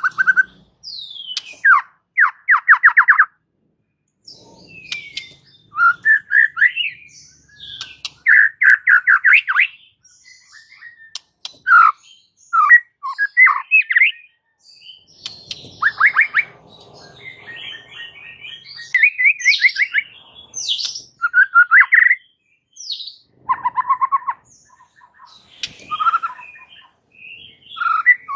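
White-rumped shama (murai batu) in full song ('gacor'): a long run of varied, loud phrases of clear gliding whistles, chips and fast rattling trills, separated by short pauses.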